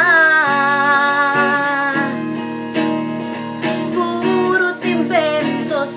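A woman singing to her own strummed guitar. She holds one long note for about the first two seconds, then sings short phrases over the strumming.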